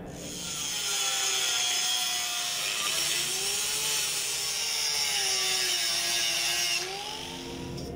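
Electric angle grinder grinding off the steel double-kickstand mounts on a motorcycle frame: a loud hissing grind over the motor's whine, which wavers in pitch. It eases off about seven seconds in.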